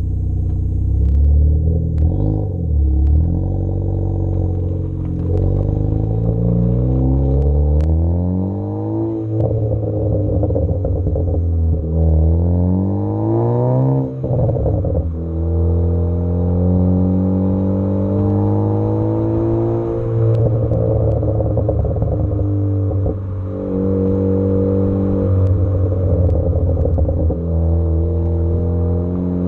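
Ford Focus ST engine and exhaust under acceleration: the revs climb and then fall away sharply at the gear changes, with a few sharp pops from the exhaust, the crackles of a tuned engine map.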